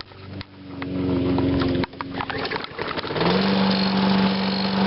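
Toro Recycler mower's 6.5 hp Tecumseh engine pull-started and catching at once, running unevenly for a moment, then coming up to a steady, higher speed about three seconds in.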